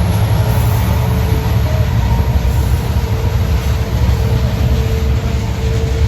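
Diesel train running past: a loud, steady low rumble with a faint steady tone above it.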